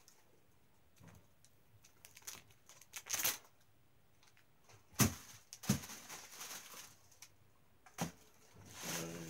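Clear plastic wrapping crinkling and tearing in bursts as a replica wrestling championship belt is unwrapped and handled, with a couple of sharp knocks.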